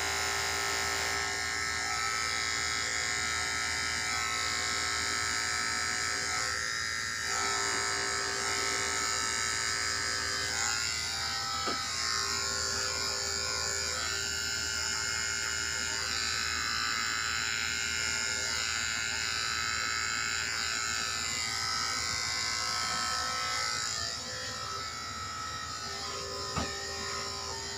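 Corded electric pet clippers running with a steady buzz while shaving a long-haired cat's paw fur. The buzz gets a little quieter near the end, with one short click.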